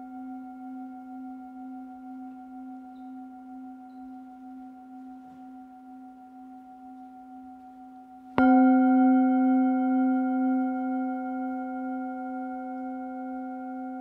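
Metal singing bowl held on the palm, ringing with one low tone and several higher overtones and slowly fading. It is struck again a little over eight seconds in and rings out louder, then decays.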